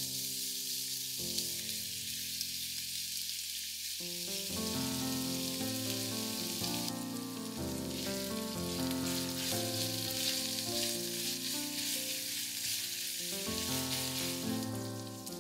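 Crumbled sausage meat sizzling steadily as it fries in oil in a non-stick frying pan, stirred with a silicone spatula. Background music with sustained, changing notes plays underneath.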